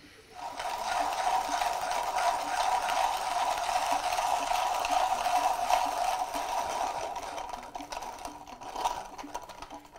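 Comandante C40 MK4 hand grinder's conical burrs crushing espresso beans as the handle is cranked: a steady gritty crackle, getting lighter over the last few seconds.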